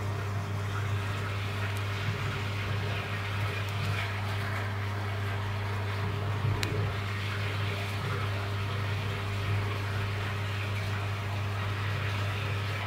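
Steady electric hum with a hiss of moving water over it, typical of an aquarium pump running continuously.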